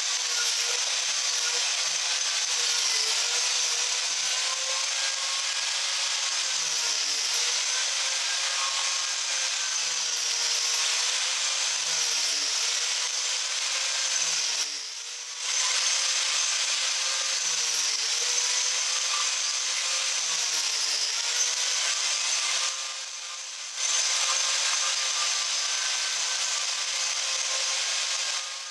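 Angle grinder fitted with a King Arthur's Tools Lancelot chainsaw-chain carving disc, the coarse roughing version with fewer teeth, running steadily as it cuts into ash wood. Its motor pitch dips slightly each time the teeth bite, and the sound drops away briefly twice.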